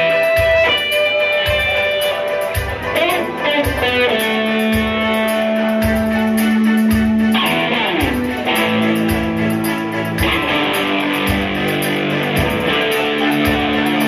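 Live band playing an instrumental passage: electric guitar playing a melody of long held notes over a steady beat and bass line.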